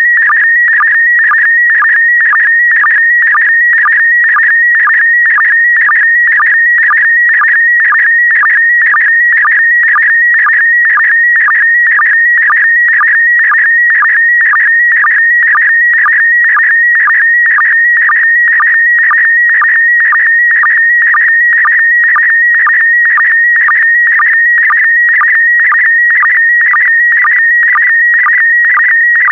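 Slow-scan television (SSTV) signal in PD120 mode: a loud electronic whistle warbling around 2 kHz as it carries image lines, broken by a short low sync blip about twice a second in an even rhythm.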